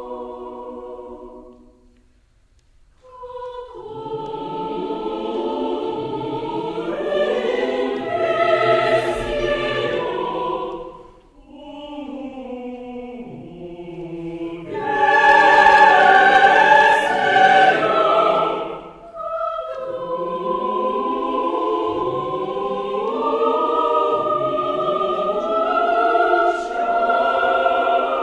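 Choir singing a contemporary Russian choral piece in sustained chords. A held chord fades into a brief pause; then the voices swell in waves, loudest about halfway through, and settle into a steady held passage.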